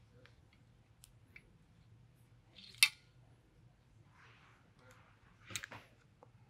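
Metal parts of an FX Maverick PCP air rifle's action being handled and fitted back together: faint rustling and small clicks, with one sharp metallic click about three seconds in and another pair of clicks near the end.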